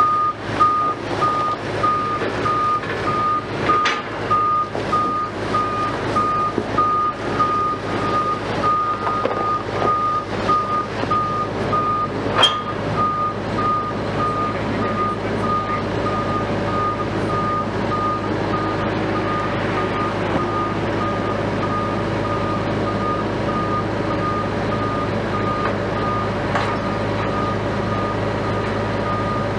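A vehicle's reversing alarm beeping at one pitch in a rapid, even train over the steady hum of heavy diesel engines. Irregular clanks and knocks come in the first half, with one sharp metallic clank about twelve seconds in.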